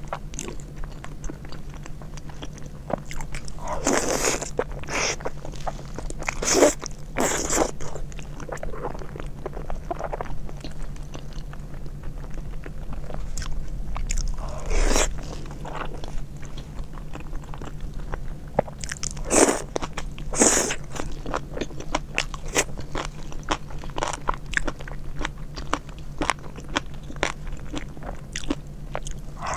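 Close-miked eating: biting and chewing soft, sauce-glazed braised meat, with louder wet bites and sucks at irregular moments. A low steady hum runs underneath.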